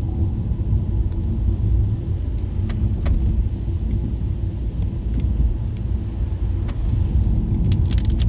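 A car being driven, with a steady low rumble of engine and tyre noise and a few light clicks or rattles, most of them near the end.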